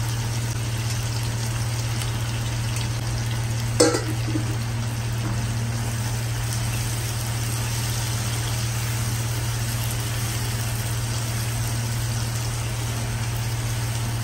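Onion and tomato frying in oil in a non-stick kadai with a steady sizzle while a spatula stirs in freshly added onion chunks. The spatula knocks sharply against the pan once, about four seconds in, over a steady low hum.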